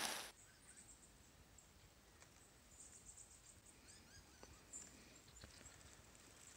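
A loud noise cuts off just after the start, leaving near silence. Faint, high bird chirps come now and then, with a few soft ticks.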